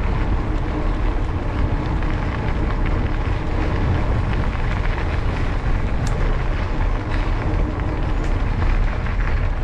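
Wind buffeting the microphone of a camera on a moving mountain bike, with a steady low rumble from the tyres rolling along a towpath.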